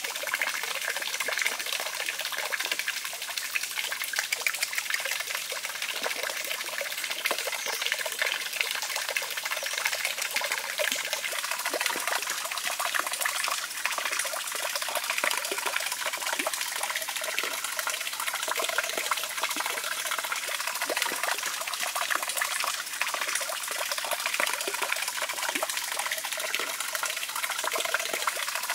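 Running water trickling and splashing steadily into a small moat pond. From about ten seconds in, small clicks and smacks of puppies eating from bamboo troughs are heard over it.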